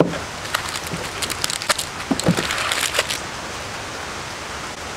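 Packaging being handled: crinkling and rustling of plastic wrap, foam blocks and cardboard as a small LED light bar is lifted out of its box. The handling noise stops a little after three seconds, leaving a steady background hiss.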